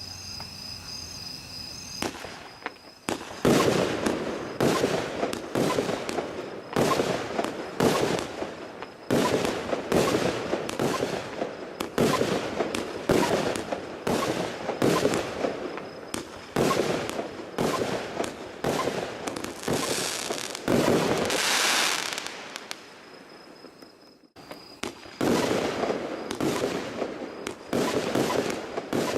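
Donnerblitz firework going off: a long series of sharp shots, about one or two a second, starting a few seconds in. A hissing stretch comes before a short gap about three quarters of the way through, and then the shots resume.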